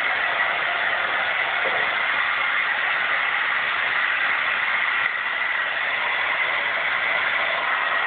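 Hair dryer running steadily: an even rush of air with a steady high whine from the motor.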